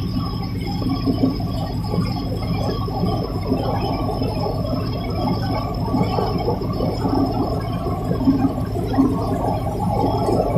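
Tugboat's engines running steadily under heavy load while it pushes a ship, a constant low rumble with an uneven rushing noise over it.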